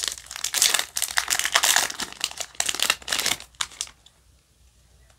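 Foil wrapper of a Yu-Gi-Oh! booster pack crinkling and tearing as it is opened by hand and the cards are pulled out. The crinkling stops abruptly about four seconds in.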